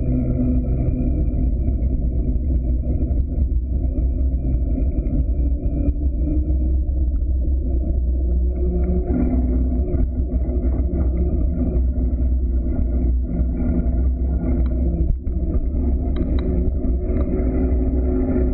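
Wind rumbling on a bike-mounted camera's microphone, with knobby mountain-bike tyres humming on asphalt during a descent. A steady noise, with a few faint clicks and rattles.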